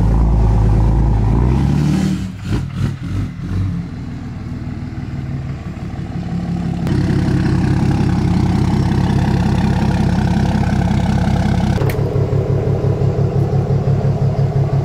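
Ram 3500 dually pickup's engine running as the truck is driven and manoeuvred. It rises in pitch over the first two seconds, drops away, then runs steady and louder again from about seven seconds in, with an even pulsing beat near the end.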